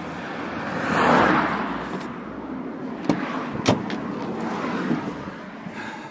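A car passing by, its noise rising and falling over about two seconds, followed by a few sharp clicks and light knocks.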